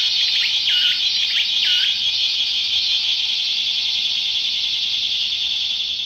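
Several toy cicada-call sound keychains from a gacha capsule set playing recorded cicada songs at once through their small speakers. The result is a loud, steady, high buzz of massed cicada song. Over it, a pulsing call of dipping notes repeats about twice a second and ends about two seconds in.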